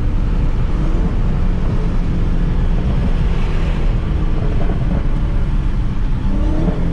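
Dodge Charger SRT Hellcat's supercharged V8 running with a steady, loud low rumble.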